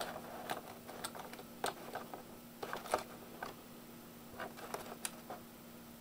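Hands handling a boxed action figure and its plastic packaging: an irregular run of sharp clicks and crinkles that stops a little after five seconds in.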